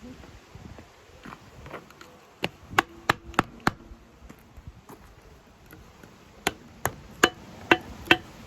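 Hammer blows knocking a part free on a Lister CS engine during teardown. There are five sharp strikes at about three a second, a pause, then five more, some leaving a short ring.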